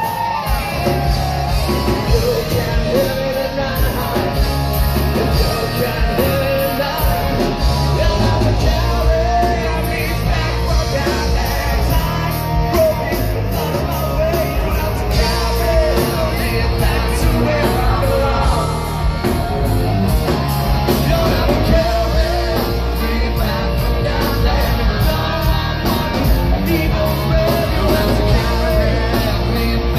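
Live rock band playing: distorted electric guitar, bass and drums, with a male lead singer belting over them.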